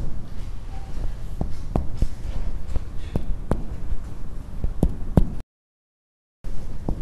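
Clinical chest percussion: fingertips strike a finger pressed flat on a man's bare chest, giving a series of dull, sharp taps a few per second. The sound cuts out for about a second near the end.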